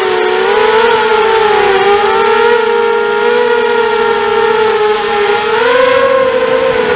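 Brushless motors and 5x3 propellers of a 250-size FPV quadcopter (DragonFly 1806 2300kv motors on 3S) whining in flight, several close tones wavering as the throttle changes, with a rise in pitch about five and a half seconds in. Air rushing over the airframe adds a steady hiss.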